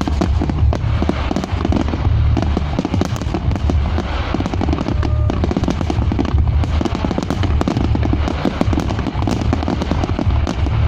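Fireworks display going off in a dense, continuous barrage: many overlapping sharp cracks and pops over a steady deep rumble of booms, with no gap.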